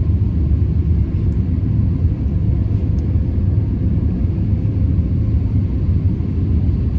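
Steady low rumble of an Airbus A350-1000 heard from inside the passenger cabin in flight: the drone of its Rolls-Royce Trent XWB engines and the rush of air past the fuselage, with a faint steady hum above it.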